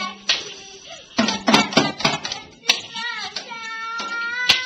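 Toy drum kit and small cymbal hit irregularly by a child, sharp uneven strikes with a short ring. From past the middle a long high note is held over the hits.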